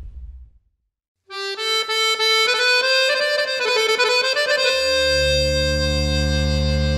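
Background music starts after a short silence: a solo melody of changing notes, joined by a sustained low chord about three and a half seconds later. Before the silence, the tail of the intro sound fades out.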